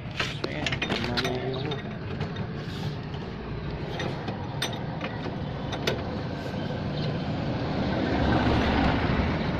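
Ratchet wrench clicking and metal tools clinking against the rear shock absorber's lower mounting bolt as it is loosened, in a cluster of sharp clicks about a second in and scattered clicks later. A steady low rumble underneath grows louder near the end.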